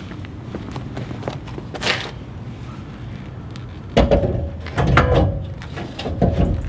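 A welded steel stand for a debris loader set down onto a steel trailer tongue: a sudden loud metal clank about four seconds in, then more clanks with a ringing note as it is shifted into place.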